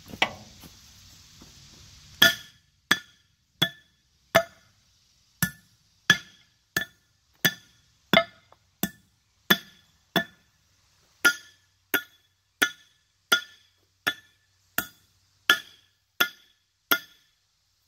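Hammer striking steel wheel studs to knock them out of a cast iron brake drum hub: about twenty sharp metallic blows, roughly one and a half a second with a couple of short pauses, each with a brief ring. The studs are splined, pressed in rather than threaded, so they drive straight out under the blows.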